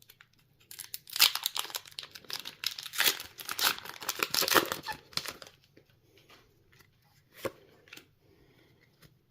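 A foil booster-pack wrapper being torn open and crinkled for about five seconds, followed by quieter handling with a couple of sharp clicks near the end.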